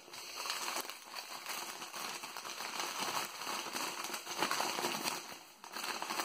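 Newspaper packing crackling and rustling as a wrapped bundle is lifted out of a cardboard box and unwrapped by hand, easing off briefly near the end.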